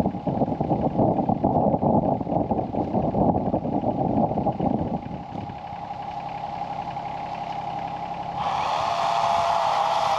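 SANY SY26U mini excavator's diesel engine idling while it warms up after a cold start, with an irregular clatter for the first half that then settles quieter. Near the end the sound changes abruptly to a louder steady hum with a wavering tone.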